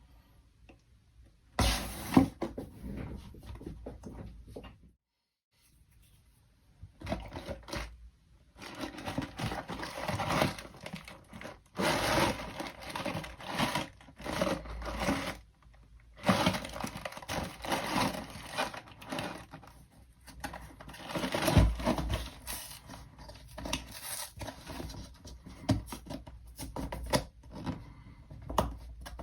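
Dishwasher-tablet packaging being handled and opened by hand: tearing, crinkling and scraping in irregular bursts, with a brief pause a few seconds in.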